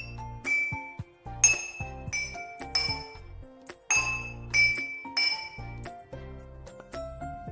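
Glass being struck in a quick, uneven series of bright ringing clinks, each note a different pitch, over soft background music.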